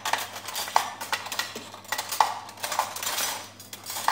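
Metal cutlery and dishes clattering in a kitchen: an irregular series of clinks and knocks, some with a short metallic ring.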